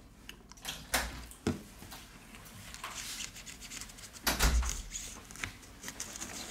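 A thin plastic opening card scraping and rubbing along the edge of a smartphone's glued glass back cover as it cuts through the adhesive, with a few light knocks and a louder bump about four and a half seconds in.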